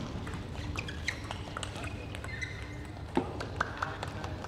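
Table tennis ball clicks as a rally ends, with short squeaks of shoes on the court floor. About three seconds in comes one sharp louder click, then a couple of quicker, fainter ones, like the loose ball bouncing to rest.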